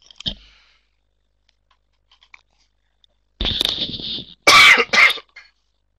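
A man coughing and clearing his throat: two harsh bursts a little past the middle, the second the louder, with a faint click near the start.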